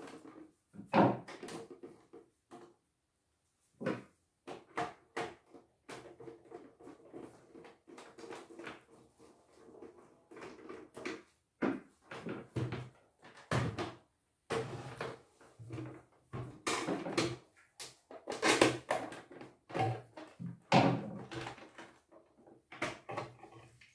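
Irregular knocks, clicks and rattles of the plastic housing of a CNY E900 embroidery machine being handled as its cover is taken off.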